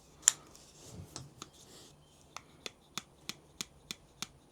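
Light metal clicks from the pliers of a SOG Q4 multi-tool being handled: one sharp click, a brief rustle, then an even run of clicks about three a second.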